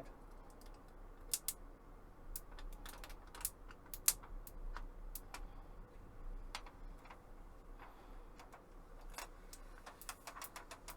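Irregular sharp clicks and ticks as fingernails pick at and peel the plastic protective film off a computer monitor's screen.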